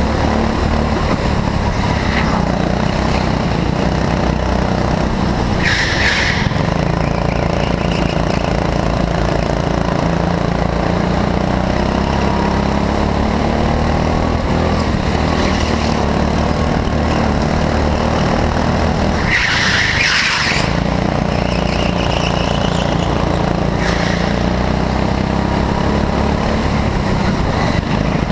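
Go-kart engine running loudly and fairly steadily at speed, heard from on board the kart. There are brief tyre squeals about six seconds in and around twenty seconds in, the second as the engine drops back, typical of sliding through a corner on a slick indoor track.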